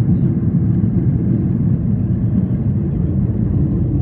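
Steady low rumble of an airliner climbing after take-off, engine and airflow noise heard inside the passenger cabin.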